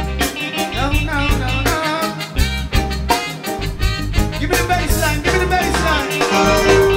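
Live reggae band playing, with a heavy bass line and steady drums under a bending melody line.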